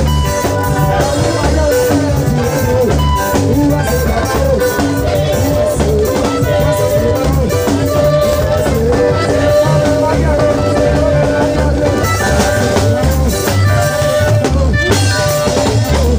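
Loud music with a drum-kit beat and guitar, and a man singing into a handheld microphone over it.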